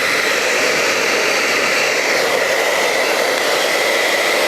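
Handheld hair dryer running on its cold shot setting: a steady rush of blown air with a steady high whine from the motor and fan.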